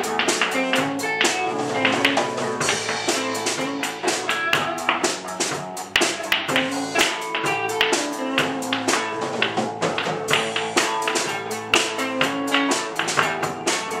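Music: plucked guitar notes in a repeating figure over sharp percussive clicks in a quick, even rhythm.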